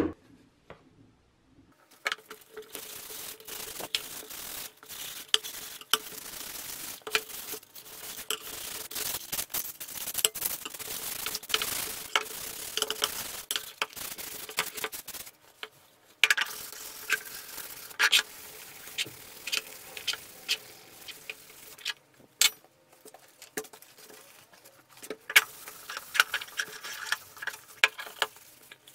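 Hand sanding of a metal lamp shade with sandpaper: a dry, scratchy rasp of rapid back-and-forth strokes. It stops briefly about halfway and resumes, then gives way to lighter, scattered rubbing and small knocks from handling the shade near the end.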